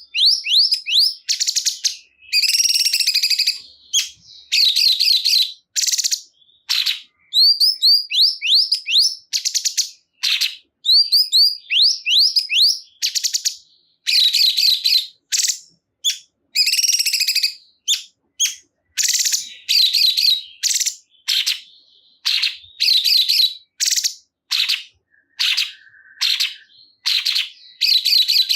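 Cungkok songbird singing in quick bursts of high chirps, trills and rapidly repeated rising whistled notes, each phrase about a second long with short gaps between.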